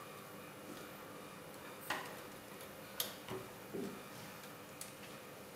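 Light clicks and taps of rubber loom bands and fingers on the plastic pegs of a Rainbow Loom as bands are stretched onto it, about five scattered clicks over a faint background.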